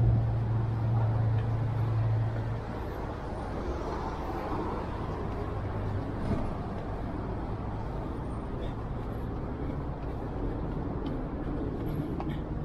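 City road traffic, a steady rumble and hiss. A vehicle's low hum is loudest at the start and fades away over the first few seconds.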